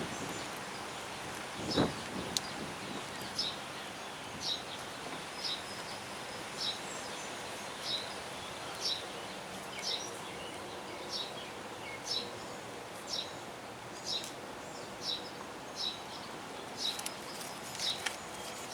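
A bird repeating a short, high chirp about once a second over steady outdoor background noise, with a single thump about two seconds in.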